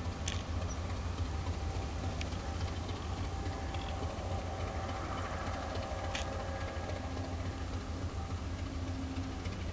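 The diesel engine of a TGM6A diesel-hydraulic shunting locomotive running with a steady low rumble, with a few faint clicks.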